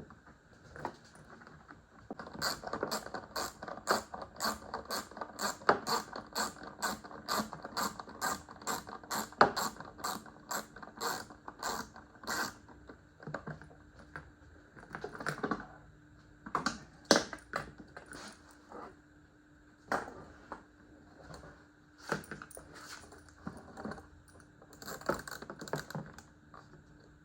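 Ratchet wrench clicking in quick, even strokes, about three clicks a second for roughly ten seconds, then a few scattered single clicks.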